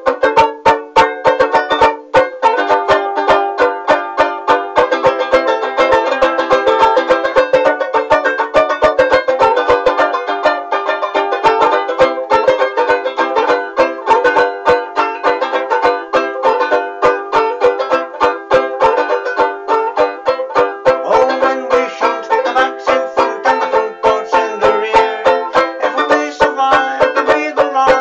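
Banjo ukulele strummed fast and continuously in a cheerful tune, many strokes a second, with no singing.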